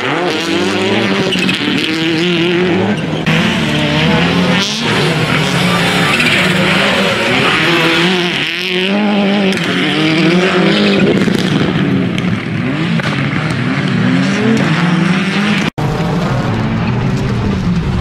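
Subaru Impreza WRC rally car's turbocharged flat-four engine revving hard, its pitch rising and falling again and again as the driver accelerates, lifts and changes gear through the bends. The sound breaks off abruptly near the end and picks up again.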